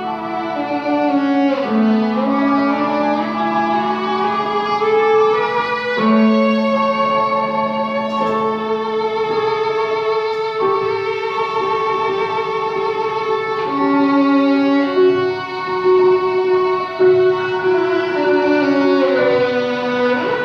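Violin playing a slow melody of long bowed notes, some sliding into the next, with piano accompaniment.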